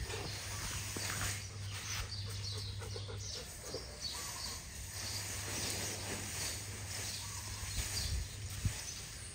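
Elephant feeding on cut grass, its trunk gathering and handling the bundles with scattered soft rustles and knocks. A low steady hum runs for the first few seconds and then stops.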